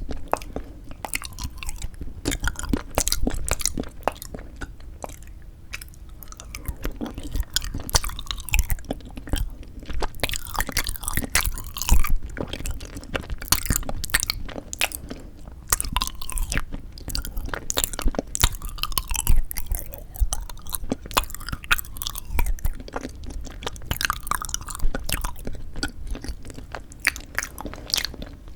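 Close-miked chewing and biting of frozen yanggaeng (sweet red bean jelly): an irregular stream of sharp, wet mouth clicks and crunches.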